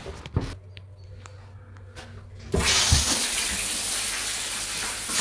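A few faint knocks, then about two and a half seconds in a pump-fed power shower comes on suddenly: water spraying from the shower head in a steady, strong hiss, a good flow that shows the pump is working.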